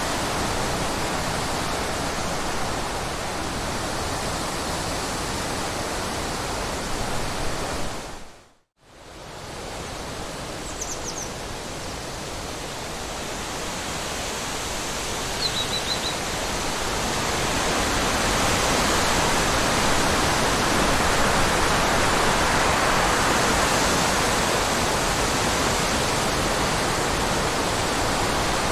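Steady rushing water. It fades out to a moment of silence about nine seconds in, fades back, and swells louder after about seventeen seconds. Two faint, brief high chirps come through around eleven and fifteen seconds.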